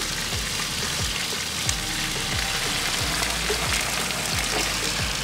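Chicken breast sizzling in a frying pan over a wood fire, a steady hiss, under background music with a steady low beat.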